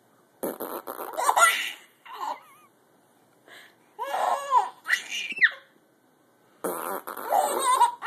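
A man making funny fart-like noises with his mouth in three bursts, with a baby's giggles and high squeals between and after them.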